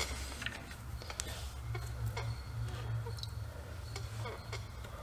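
Faint scattered clicks and light taps of damp leather washers being handled and slid onto a steel knife tang, over a steady low hum.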